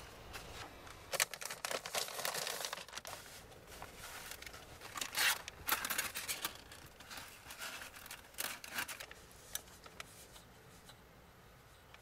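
Crinkly material being handled and torn in irregular bursts of rustling with sharp crackles, loudest about one to three seconds in and again from about five to nine seconds in, then fading.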